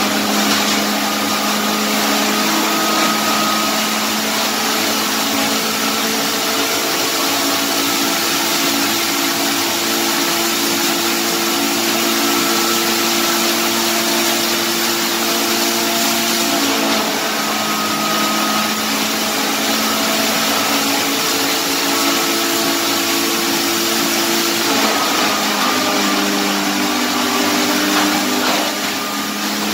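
A 7.5 kW three-phase electric hammer mill with a 3 mm screen, running steadily while grinding woodchip, its blower pushing the milled material out through a flexible hose. It makes a loud, even rushing noise with a steady hum and whine whose pitch shifts slightly a few times.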